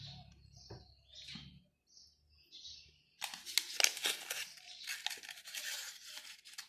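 Crinkling, crackling rustle with sharp little clicks from hands shaping and pleating a filled steamed bun, starting about three seconds in after a quiet stretch.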